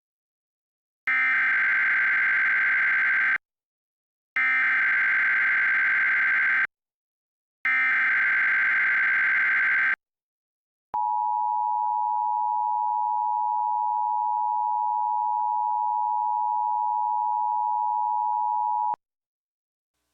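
Emergency Alert System tones. Three identical bursts of warbling SAME digital header data, each about two seconds long with short silences between them, then a single steady attention-signal tone held for about eight seconds that cuts off sharply. They mark the start of a tornado warning test message.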